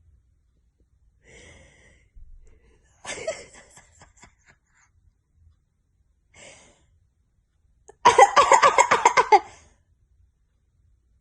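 A woman coughing: a few short coughs and breaths, then a loud fit of about ten rapid coughs in a row near the end.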